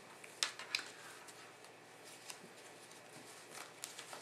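Rope of a monkey's fist knot being tightened by hand, strand by strand: faint rubbing and rustling of the cord with a few short, sharp clicks.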